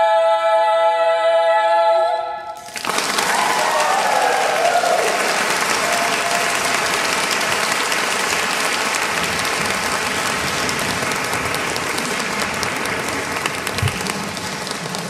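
A women's barbershop quartet holds the final chord of a song in close four-part a cappella harmony, cutting off sharply about two and a half seconds in. The audience then applauds steadily.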